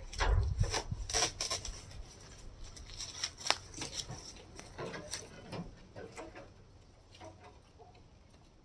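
A mini-split outdoor unit being tipped back onto a hand truck and wheeled across grass: a heavy thump with knocks about the first second, then scattered clatters and knocks from the hand truck and its load that fade as it moves away.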